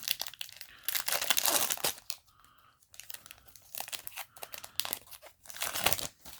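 Foil trading-card booster pack wrapper crinkling and tearing as it is opened: a loud spell of crackling at the start, quieter rustling, then another loud spell of crackling shortly before the end.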